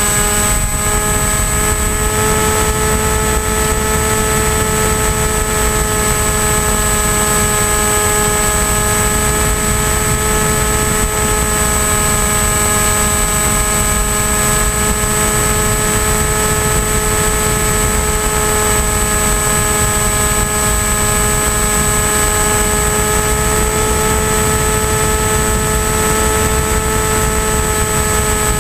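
Electric motor and pusher propeller of an AXN Floater-Jet RC plane running at steady cruise throttle in flight. It makes a steady multi-pitched whine, heard from onboard over a constant rush of air noise, and the pitch shifts slightly near the end.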